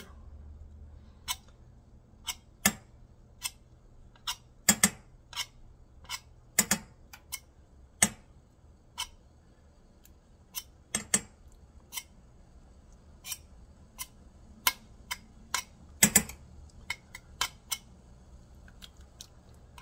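Table knife clicking and scraping against the edge of a metal pot lid as it cuts small bits of nokedli dumpling batter off into the pot: irregular sharp metallic clicks, about one or two a second, some in quick pairs.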